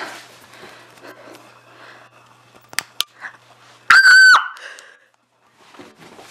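A short, very loud, high-pitched shriek held at one pitch for about half a second, about four seconds in, just after two sharp clicks; faint breathing and rustling in the dark before it.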